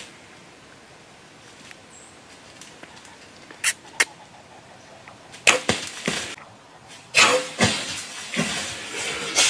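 Compound bow shot: a sharp snap of the release about four seconds in and a second crack a third of a second later as the arrow strikes, followed by several loud rustling bursts.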